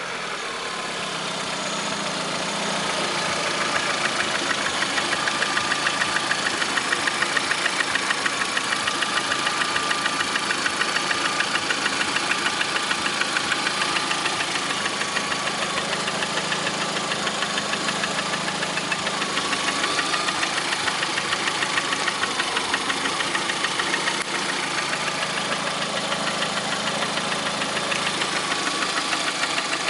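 Lada Priora's 1.6 16-valve VAZ-21126 engine idling with a rapid, regular knock. The owner blames the knock on a Suprotec additive and suspects the hydraulic lifters or the piston group.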